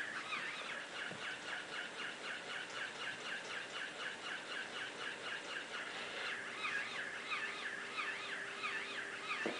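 Walking plush pig toy running: an even, rhythmic string of short squeaky chirps, several a second. A faint steady hum joins about six seconds in.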